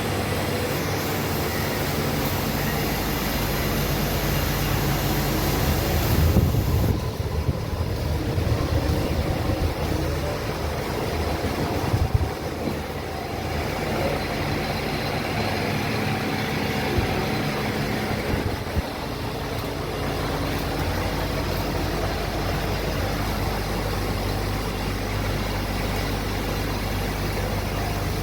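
Several industrial machines running together: a steady mechanical hum with hiss. Louder uneven rumbling and a few knocks come between about six and thirteen seconds in.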